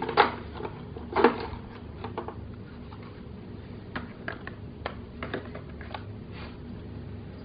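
Light plastic clicks and taps from a toy cash register being handled and its keys pressed, two sharper ones in the first second and a half, then scattered fainter clicks over a steady low hum.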